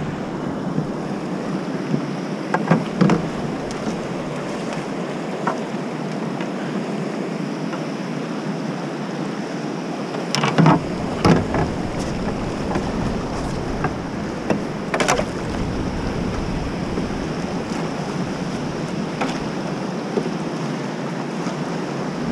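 Fast river water rushing steadily past a canoe, with a few sharp knocks of the paddle and gear against the hull. The loudest pair of knocks comes about halfway through.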